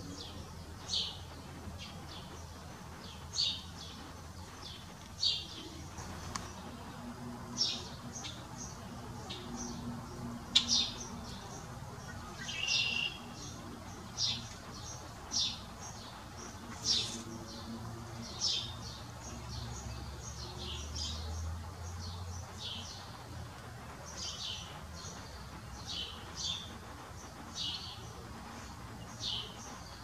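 Songbirds giving short, high chirps, one every second or two throughout.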